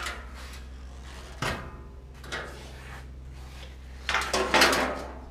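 Loose sheet-metal cab window panel being handled: a few sharp knocks, then a louder scraping rub about four seconds in. A steady low hum runs underneath.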